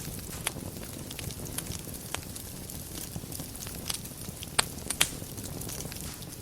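Wood fire burning in a fireplace: a steady low rumble of flames with frequent small crackles, and two sharper pops about four and a half and five seconds in.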